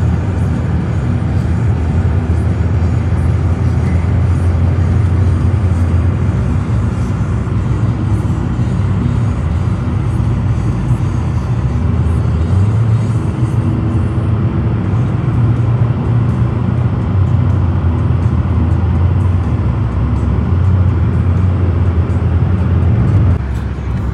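Steady low rumble of a moving road vehicle, heard with music playing.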